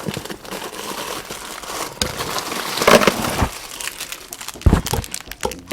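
Crinkling plastic wrapper of a packet of instant ramen being handled, with a couple of knocks.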